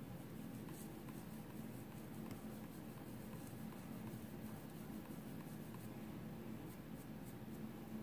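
Faint scratchy strokes of a small makeup brush applying contour powder to the nose, over a steady low hum.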